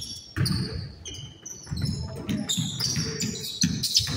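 Basketball being bounced on a court during play, a series of repeated thumps, with voices in the background.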